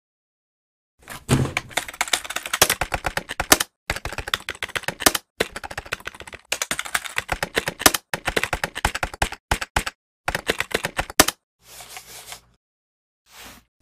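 Rapid, irregular clicking and tapping in several bursts of a second or two each, broken by abrupt cuts to silence.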